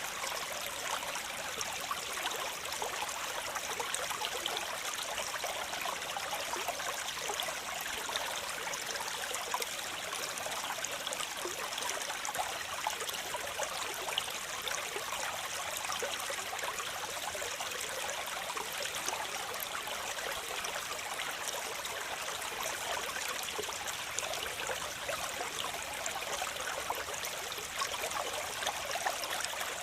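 Waterfall: water falling and splashing in a steady, unbroken rush, mostly bright splashing with little deep rumble.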